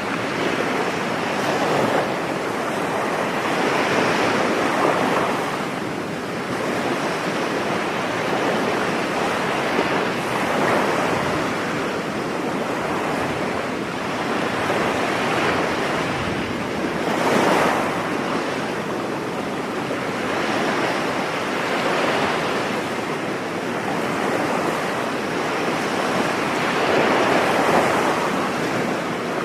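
Ocean waves breaking and washing up a beach, a continuous surf noise that swells every few seconds.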